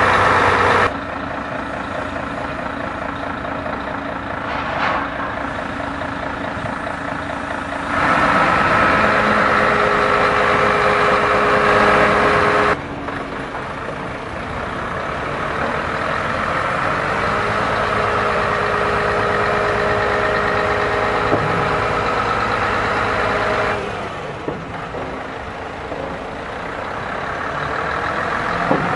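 Suction excavator truck running: a steady engine drone with a steady whine above it. The sound changes abruptly in level and character four times.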